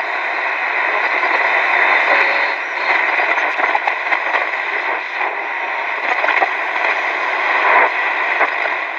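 Shortwave static hiss from the speaker of a Hitachi Hi-Phonic WH-888R portable radio, with scattered crackles, as it is tuned between stations.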